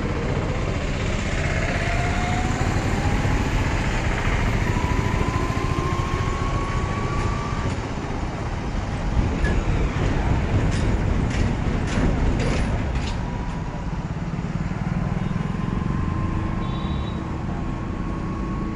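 Road traffic noise: a steady rumble of passing vehicles, with an engine whine rising in pitch over the first several seconds and a run of sharp clicks about eleven to thirteen seconds in.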